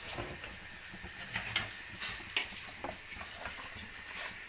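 A metal spoon scraping and clicking against a pan as cooked spaghetti is lifted out and served, several short knocks over a faint steady hiss.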